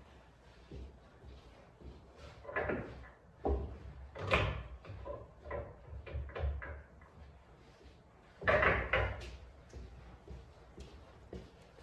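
A string of irregular knocks and thuds, the loudest about four seconds in and a heavier cluster near nine seconds: handling and movement by a player walking around a pool table with her cue.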